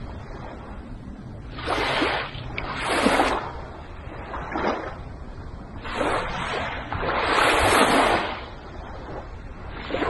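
Small, gentle waves breaking and washing up a sandy beach in a series of swelling surges of surf noise, one every second or two. The longest and loudest comes about seven to eight seconds in.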